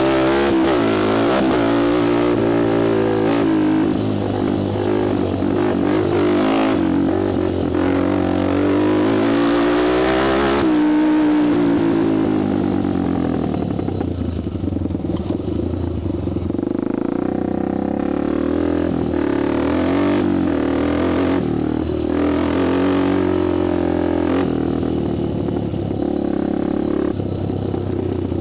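Honda TRX250X quad's single-cylinder four-stroke engine and exhaust, revved up and down hard for the first ten seconds or so, then running steadier at lower revs.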